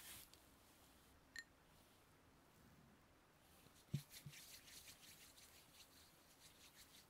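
Near silence broken by faint close-up handling sounds: a small click, then a soft low thump followed by a second or so of light, quick rustling strokes.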